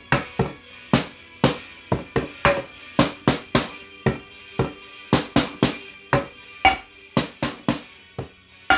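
Kitchen-utensil percussion: a wooden stick or spoon and a metal ladle striking upturned mixing bowls and a pot in a steady groove, about three to four hits a second, some strikes ringing briefly, over a backing track.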